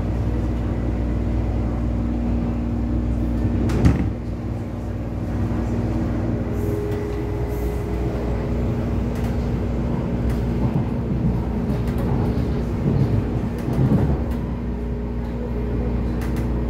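Mid-life refurbished MTR East Rail Line electric train heard from on board: a steady low rumble with a constant hum, a sharp knock about four seconds in, and a few softer thuds near the end.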